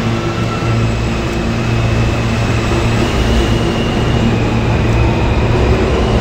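New York City subway train moving past along the platform: a steady rumble of wheels and traction motors with a faint high whine, slowly building a little louder.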